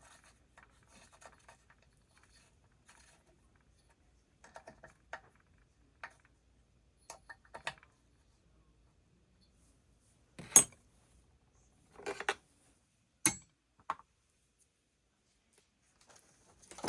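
Light metallic clicks and clinks of an Allen key and small bolts being worked while 4 mm Allen bolts are started into a chainsaw's ignition module, left loose for now. The clicks are scattered, with three sharper clinks in the last third.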